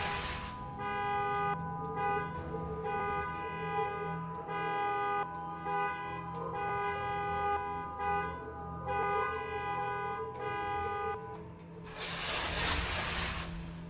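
A horn honking about eight times in a row, each blast roughly a second long with short gaps between. A burst of rushing noise comes at the start and another near the end.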